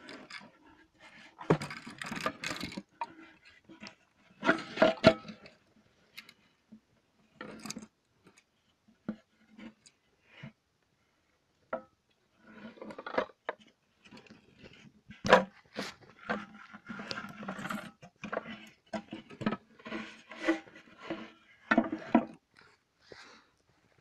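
Irregular scraping, rubbing and knocking as rigid homemade epoxy-fibreglass vacuum-housing shells are handled with a gloved hand, some knocks with a short hollow ring.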